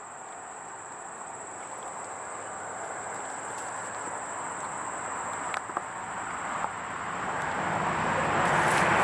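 A vehicle approaching, its tyre and engine noise building steadily and getting loud near the end, over a continuous high-pitched insect drone. A couple of faint clicks come in the middle.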